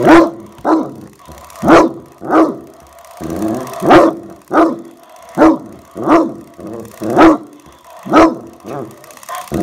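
Bloodhound barking repeatedly, about ten deep barks with a brief pause about three seconds in, at an animated skeleton-dog toy.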